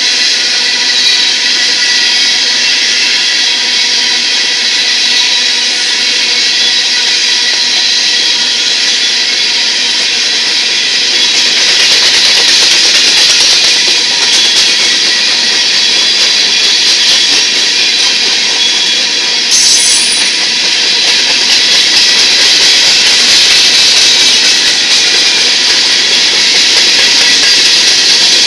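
Empty covered hopper cars of a grain train rolling past: a loud, steady noise of steel wheels on rail, with a faint steady whine over it and one sharp click about two-thirds of the way through.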